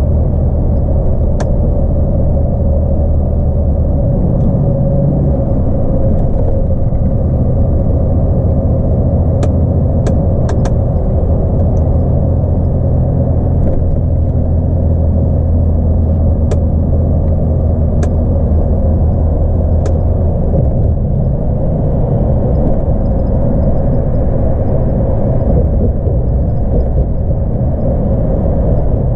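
The 10.8-litre diesel engine of a loaded DAF XF 106 truck running at motorway cruise, heard from inside the cab with tyre and road noise. Its low drone shifts in pitch about four seconds in and again about twenty seconds in, with a few light clicks scattered through it.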